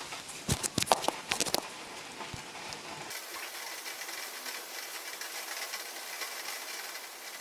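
Steady hiss of falling rain, with a quick run of sharp clicks and knocks in the first second and a half.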